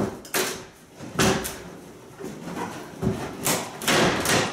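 Wooden kitchen cabinet doors being wrenched off their hinges: a run of sharp wooden bangs and cracks, the loudest just over a second in, then a longer rattling crash near the end.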